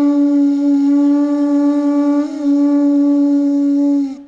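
Conch shell trumpets blown together in one long, loud held note at a steady pitch, breaking off shortly before the end.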